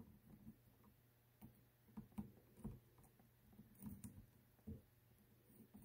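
Near silence broken by faint, irregular light taps and clicks from handling the soldering iron, wire and XT90 connector.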